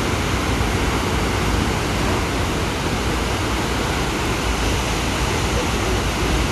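Large mountain waterfall plunging, a steady loud rush of falling water with a deep rumble underneath.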